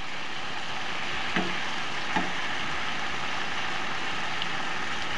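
Salmon fillets frying in oil in a stainless steel pan: a steady sizzling hiss, with two light taps of a metal palette knife against the pan about a second and a half and two seconds in.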